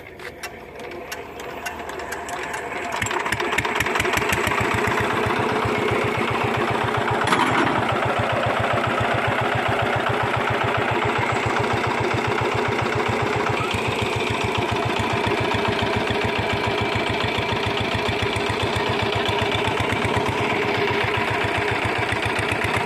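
Hand tractor's single-cylinder diesel engine being crank-started: it spins up over the first few seconds, catches, and then runs steadily with a rapid, even beat. One sharp knock stands out about seven seconds in.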